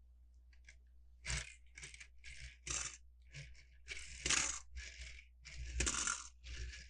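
Lego plastic pieces clattering and scraping as they are handled, a quick irregular run of about a dozen short rattles starting about a second in.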